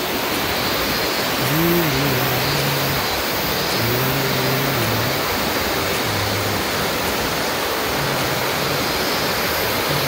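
River rapids rushing steadily, a muddy river running high after a typhoon.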